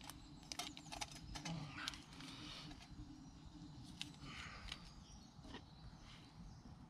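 Faint scattered clinks and knocks of a stainless steel camp kettle being lifted off its pot hanger and set down beside a metal mug, with some brief rustling.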